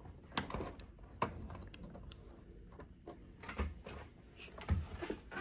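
Scattered light clicks and knocks of hand tools and parts being handled as a ductless mini-split indoor unit is taken apart.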